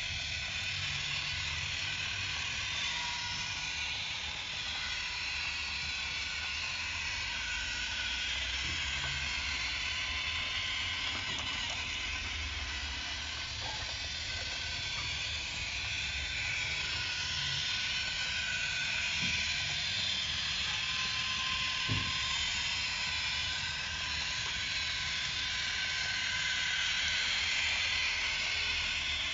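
Battery-powered Plarail toy monorail running along its plastic elevated track: a steady whir from its small motor, with a single click about three-quarters of the way through.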